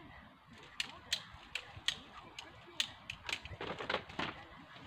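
A long-handled pole pruner working among apple-tree branches: a string of sharp, irregular clicks, two or three a second, with rustling of branches and leaves partway through.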